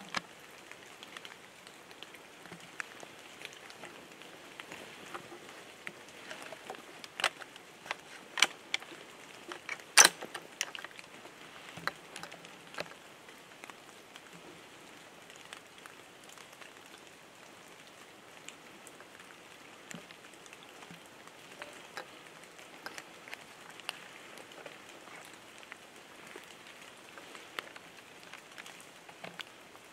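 Rain falling on wet brush and leaves, a steady patter with scattered sharp drip clicks, the loudest about ten seconds in.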